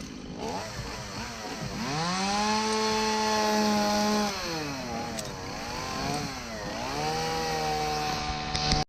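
Chainsaw revving: the engine pitch climbs about two seconds in and holds at high speed, falls off near four and a half seconds, then climbs again near seven seconds and holds slightly lower before cutting off abruptly.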